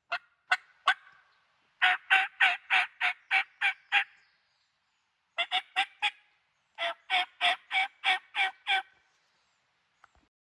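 Turkey yelps in runs of short, evenly spaced notes, about four a second, with short pauses between the runs, as a hunter's call makes them.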